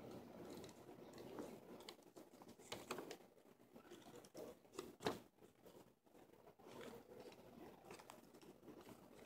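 Faint rustling and handling of paper, with scattered soft clicks and one sharper click about five seconds in.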